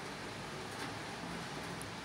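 Steady hiss-like background noise, with no clear mechanical event.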